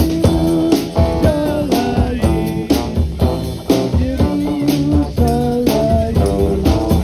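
Live Chasidic rock band playing electric guitars over a drum kit, with a steady beat and a moving guitar line.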